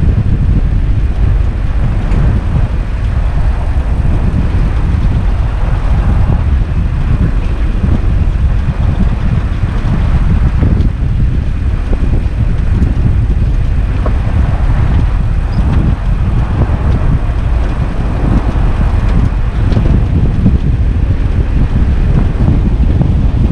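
First-generation Toyota truck driving off-road: a loud, steady low rumble of engine and tyres, with some wind on the microphone.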